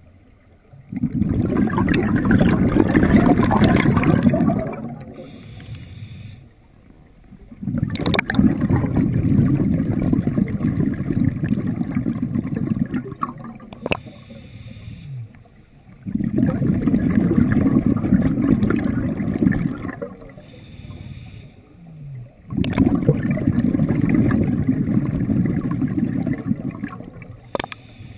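Scuba diver breathing through a sidemount open-circuit regulator underwater: four long gurgling rushes of exhaled bubbles, about seven seconds apart, with quieter gaps between breaths.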